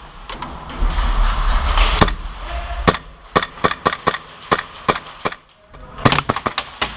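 Airsoft guns firing indoors: a string of irregular sharp pops, with a quick cluster of shots about six seconds in.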